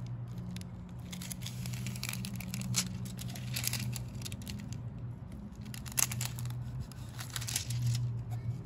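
Self-adhesive butyl joist tape being peeled and pressed onto a wooden 2x4, with irregular crackling and tearing from the tape and its backing film, and one sharper click a little past the middle. A steady low hum runs underneath.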